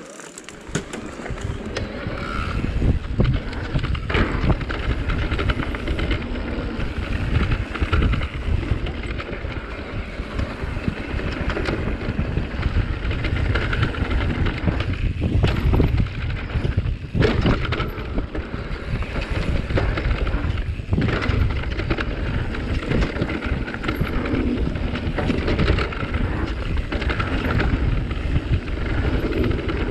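Mountain bike riding down a dirt forest trail: steady wind rumble on the mounted microphone and tyre noise on the dirt, with frequent rattling knocks from the bike over roots and bumps. It starts quieter and builds within the first couple of seconds as speed picks up.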